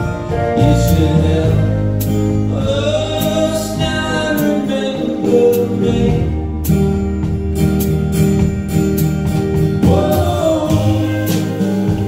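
Live band music: strummed acoustic and electric guitars with several voices singing together in harmony.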